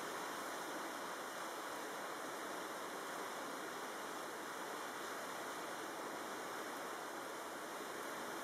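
Steady rush of tropical-storm wind over choppy, wind-whipped water, holding an even level throughout.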